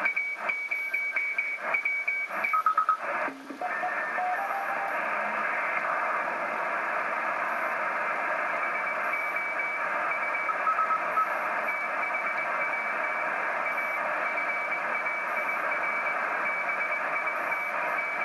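Shortwave receiver audio from an Icom IC-PCR1000 in CW mode on the 40-metre amateur band: Morse code tones over receiver hiss. For the first three seconds a stronger tone keys on and off with crackling clicks. The audio then shifts to a steady hiss with a fainter, higher Morse tone coming and going.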